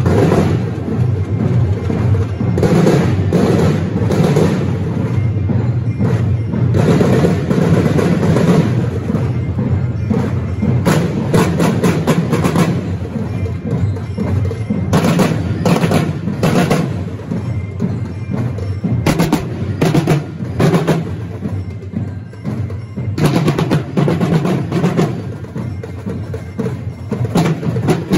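Marching drumline playing a parade cadence: bass drums, paired tom drums and snare drums beaten together, with clusters of sharp, crisp strokes in places.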